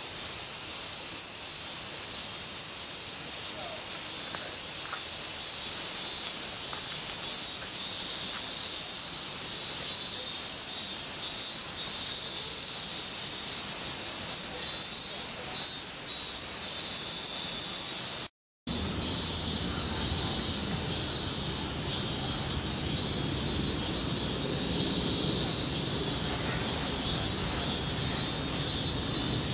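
Steady, high-pitched chorus of insects calling, with some pulsing calls. About two-thirds of the way in the sound drops out for a moment, and afterwards a lower steady rushing noise runs under the insects.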